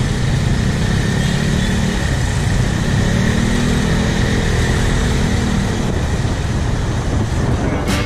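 Motorcycle engine running as the bike rides through slow, busy traffic, blended with the engines of surrounding motorbikes and steady wind and road noise.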